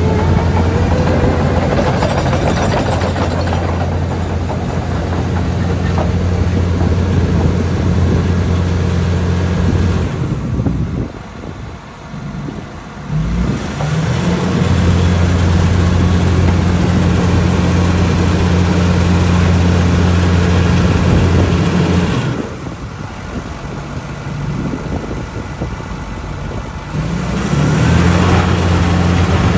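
Diesel engine of a 2012 Vögele Super 1900-2 asphalt paver running steadily at high revs. Twice it drops back for a few seconds, about ten seconds in and again a little after twenty seconds, before running up again.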